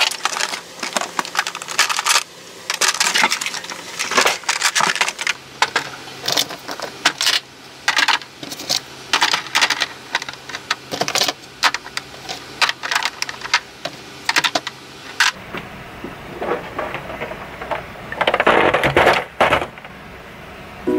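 Makeup products and plastic organizer trays clicking and clattering as they are handled and set down in a vanity drawer: a fast, irregular run of small knocks. A longer, louder burst of noise comes near the end.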